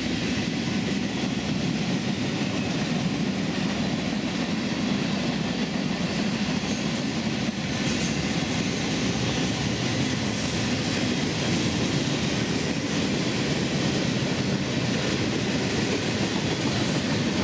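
BNSF freight train rolling past: a steady rumble of steel wheels on the rails as the cars go by.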